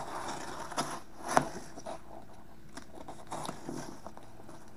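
Box cutter blade slicing along packing tape in the seam between cardboard boxes, a scratchy rasp in the first second with a sharp click about a second and a half in, then quieter small ticks and rustles of hands on the cardboard.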